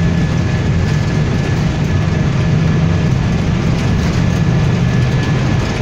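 Airbus A320 takeoff roll heard from the cockpit: a loud, steady, deep rumble of the engines at takeoff thrust and the wheels running on the runway, with a faint steady high tone above it.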